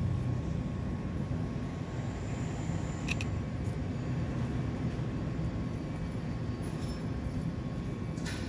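A steady low rumble in the background, with a couple of faint, light clicks as small metal rings on a cast lead lure are handled, about three seconds in and near the end.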